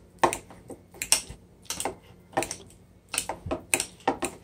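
Metal fork mashing avocado in a ceramic bowl, its tines clicking and scraping against the bowl in an irregular series of taps, roughly two a second.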